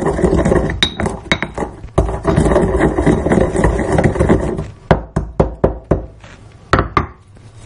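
Black peppercorns being crushed with a pestle in a stone mortar. For the first four or so seconds it is a continuous gritty grinding, then a run of quick sharp pestle strikes, about five a second, and two last knocks near the end.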